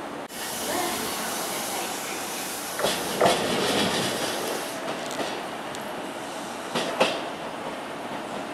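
Chuo Line E233-series electric train pulling slowly into a platform, its wheels knocking over rail joints and points in two pairs of clacks, about three and about seven seconds in, over a steady running rumble.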